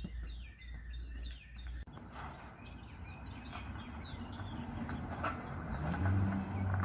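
A car pulling up: its engine noise grows louder and settles into a steady low hum near the end, with birds chirping.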